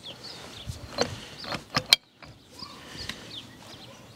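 Torque wrench and socket on a large hydraulic-cylinder rod lock nut being fitted and pulled, with a cluster of sharp metallic clicks between one and two seconds in, the last the loudest, then quieter handling noise.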